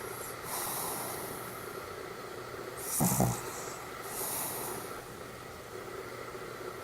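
Pomeranian snoring in deep sleep: one loud, snort-like snore about three seconds in, with airy, hissing breaths before and after it.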